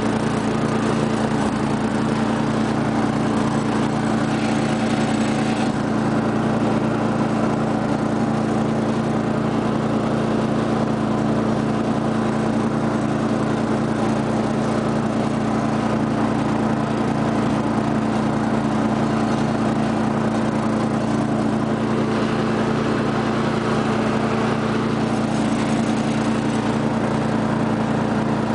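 The 12 hp Briggs & Stratton Industrial/Commercial engine of a 1999 Murray rear-engine riding mower, running steadily at an even pitch while mowing.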